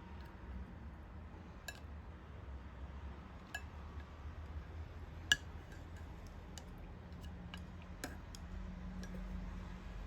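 Scattered light clicks and clinks of tableware over a low steady hum, with one sharper click about five seconds in.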